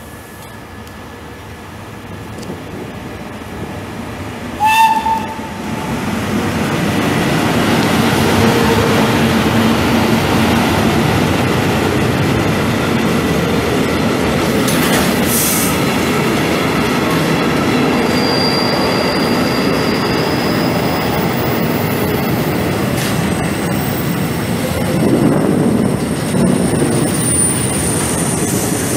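FS E652 electric locomotive sounding one short horn blast about five seconds in, then its freight train of container and tank-container wagons rolling past close by: a steady loud rumble of wheels on rails.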